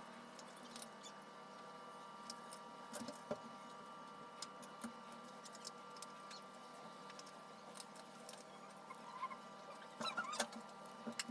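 Faint scattered clicks and small taps from hands handling a plastic nail tip and fine painting brush, a little busier near the end, over a faint steady hum.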